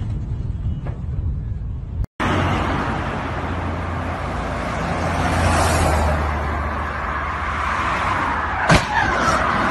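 Rough, wind-blown outdoor noise that cuts off abruptly about two seconds in. Then steady highway traffic and road noise with a low engine hum, and a sudden sharp crash of colliding vehicles near the end.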